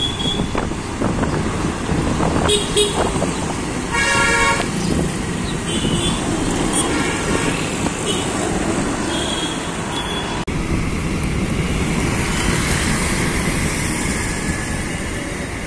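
Road traffic running steadily, with car horns honking several times: short toots about two and a half seconds in and around six, seven and nine seconds, and one longer, louder honk about four seconds in.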